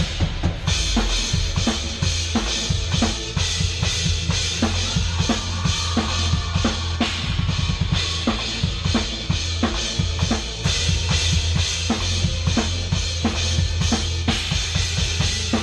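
Drum kit played fast and hard: dense kick and snare hits under a continuous wash of cymbals, with a steady low bass underneath.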